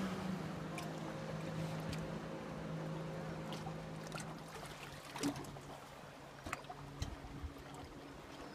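A small boat's motor runs with a steady hum that grows quieter over the first several seconds and fades out about seven seconds in. A few light knocks or splashes come near the end.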